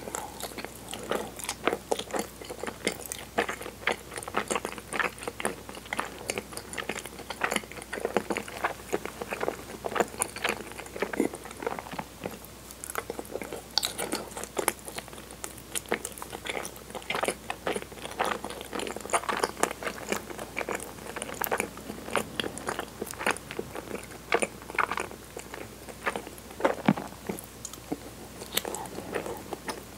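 Close-miked chewing of soft, sticky cinnamon-flavoured chigiri mochi: wet mouth sounds and many small clicks at an irregular pace.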